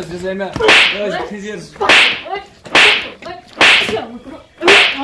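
Five sharp slaps, about one a second, landing on a man as he is beaten, with a man's voice crying out between them.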